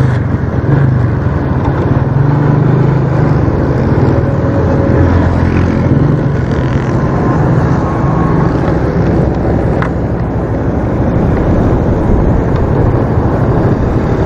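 Small motorcycle engine running at a steady cruise, a low steady drone, heard with road and traffic noise through a helmet-mounted camera microphone.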